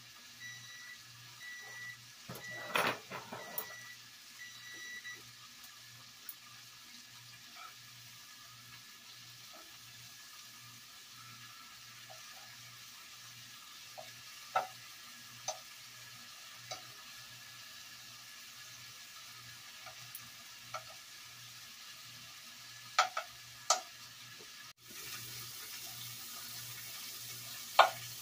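Slices of deer heart sizzling as they pan-fry in butter, with a few sharp clicks of a metal utensil against the pan. An electronic beep repeats about twice a second for the first five seconds, then stops; after a brief break near the end, the sizzle is louder.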